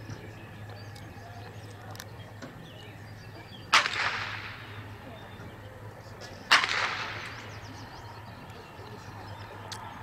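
Two blank-pistol shots fired about three seconds apart, each a sharp crack with a trailing echo. They are the gunfire test during the dog's heeling exercise, which checks that the dog is not gun-shy.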